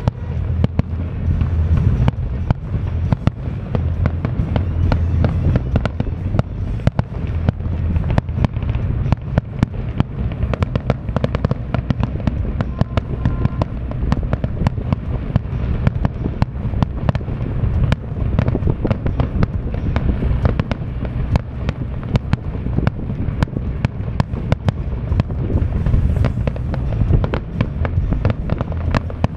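Aerial fireworks display: many sharp bangs and crackles of bursting shells in quick succession over a steady low rumble.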